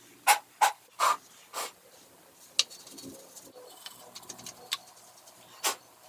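Short, hard puffs of breath blown through a plastic Dyson DC25 vacuum cleaner part to clear dust out of it: four puffs about half a second apart in the first two seconds, the last one weaker. Then a few light clicks and one sharper knock near the end as the plastic part is handled.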